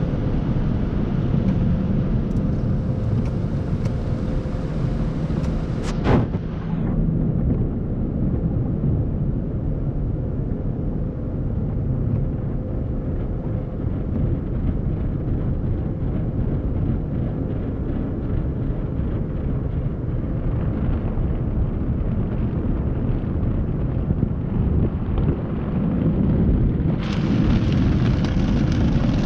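Automatic tunnel car wash heard from inside the car: a steady heavy rumble of spinning cloth brushes and water sheeting over the body and windshield. There is a sharp knock about six seconds in, and a higher hiss drops away soon after and comes back near the end.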